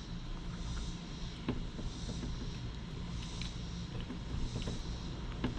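Faint scattered clicks and small wet handling sounds as fingers pull the gills and guts out of a small gutted white perch, over a steady low outdoor rumble.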